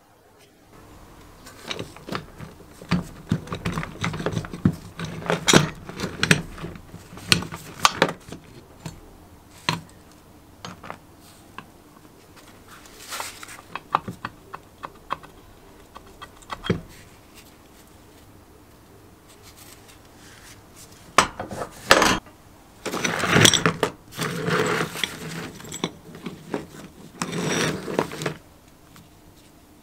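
Rusty steel parts of a manual chain hoist being handled and taken apart by hand: irregular metal clinks, scrapes and rattles, with busier stretches of clatter near the start and again near the end.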